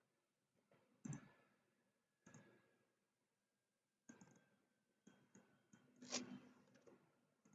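Near silence broken by a few faint, scattered computer mouse clicks, the loudest about six seconds in.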